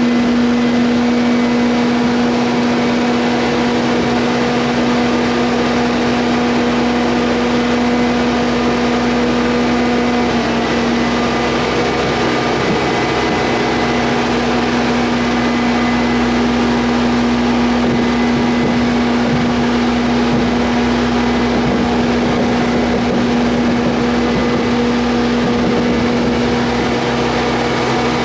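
Compact track loader's diesel engine running steadily with a constant droning hum.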